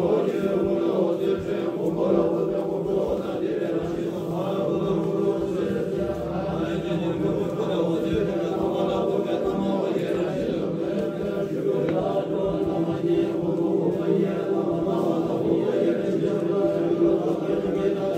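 Tibetan Buddhist monks chanting together in deep voices, a steady, unbroken group recitation.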